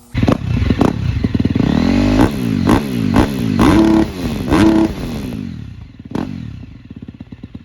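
The four-stroke single-cylinder engine of a 2019 KTM 250 SX-F, running through a full titanium FMF exhaust, is revved in a run of sharp throttle blips. The pitch rises and falls with each blip, and the exhaust note is loud and barking. About six seconds in it settles back to a steady, even idle.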